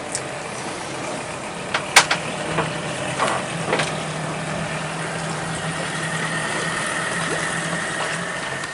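An engine running steadily at idle, with a few sharp clicks or knocks about two seconds in.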